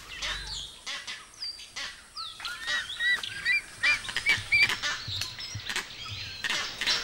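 Vervet monkeys giving their eagle alarm call: a run of about eight short calls that rise and fall in pitch, about three a second, through the middle of the stretch. Sharp clicks and rustles come and go throughout.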